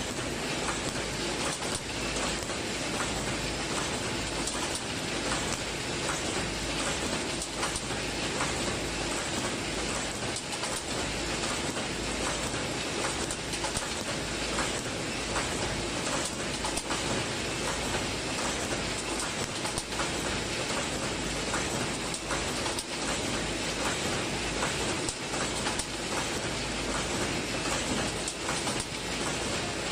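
Automatic welded wire mesh machine running: a steady mechanical clatter from the machine working, with a crackle as the row of resistance-welding electrodes sparks across the wires.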